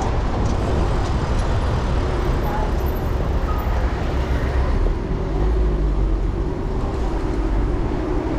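Steady low rumble of road and traffic noise heard while riding, with a faint engine-like hum coming in about halfway through.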